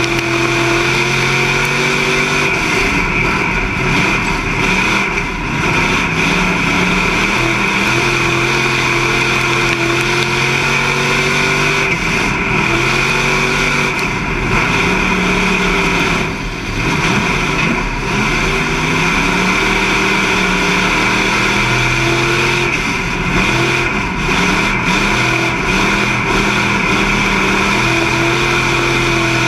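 Street stock race car's engine heard from inside the cockpit under racing load, its pitch climbing and then dropping back again and again as the driver gets on and off the throttle, with a steady high whine running over it.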